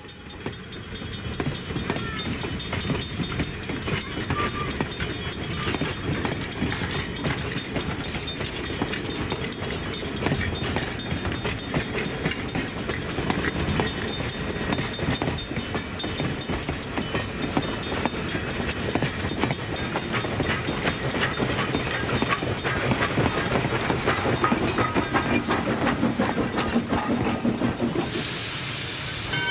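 Vintage passenger coaches of a steam-hauled excursion train rolling past, their steel wheels rumbling and clattering over the rail joints in a steady clickety-clack. A sharp hiss comes in near the end.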